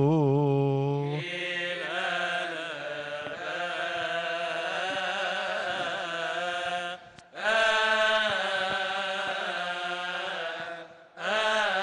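Coptic Orthodox liturgical chant: male voices singing a slow, melismatic melody on long held notes, breaking off briefly twice.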